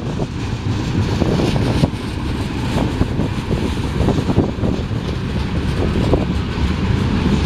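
Union Pacific manifest freight train's tank cars rolling past close by: a steady rumble of steel wheels on rail with frequent clicks and clanks.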